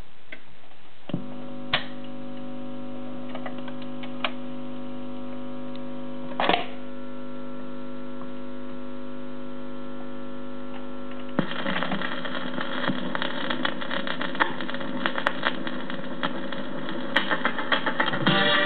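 Portable record changer switched on: a steady hum from its amplifier and speaker, with a few mechanical clicks and a clunk about six seconds in. About eleven seconds in, guitar music from the record starts playing through its built-in speaker.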